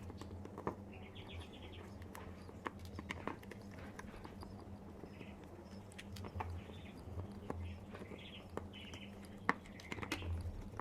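A screwdriver backing screws out of the plastic housing of a Nutribullet blender base: scattered small clicks and short squeaks of the screws turning, over a low steady hum.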